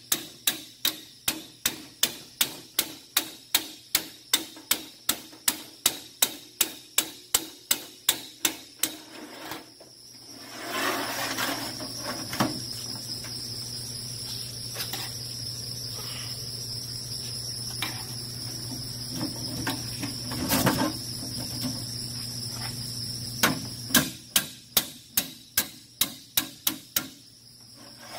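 Hammer tapping sheet-metal cleats onto the joint of a galvanized steel duct, about three even strikes a second, stopping about nine seconds in. A stretch of duller handling noise with a few single knocks follows, and a second run of strikes comes near the end.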